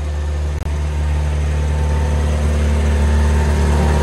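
Subaru flat-four engine swapped into a VW bay window bus, idling steadily, with a split-second gap in the sound just over half a second in.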